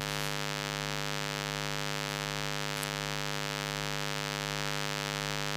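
Steady electrical mains hum, a buzzy drone that holds constant without change.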